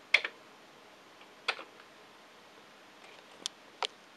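Keys struck one at a time on a Commodore VIC-20 keyboard: four separate clacks, as the RUN command is finished and entered.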